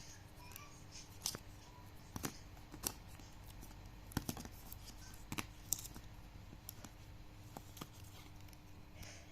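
Hands handling packaging: a series of irregular sharp clicks and snips with faint rustling, the clicks strongest in the first six seconds and sparser after.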